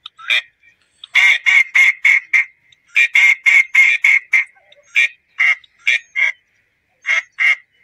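Duck quacking: loud, short quacks in quick runs of several at about four or five a second, with brief pauses between the runs.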